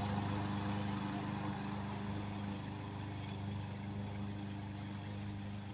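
Self-propelled gasoline lawnmower engine running steadily while mowing, slowly growing fainter.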